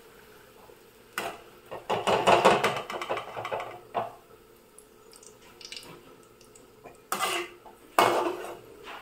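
A perforated metal skimmer scraping and clinking against a metal kadai as fried onions are lifted out of the oil. It comes in bursts: the loudest is a long stretch of scraping about two seconds in, followed by shorter scrapes around four seconds and twice near the end.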